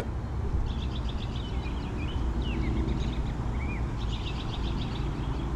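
Birds calling: bursts of rapid chattering trills and short swooping chirps, over a steady low rumble.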